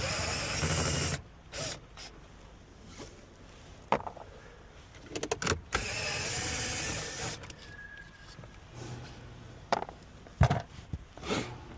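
Cordless impact gun with a 10 mm socket running two short bursts, about a second each near the start and again about six seconds in, backing out the shifter's mounting bolts. Sharp clicks and knocks of parts being handled fall between and after the bursts.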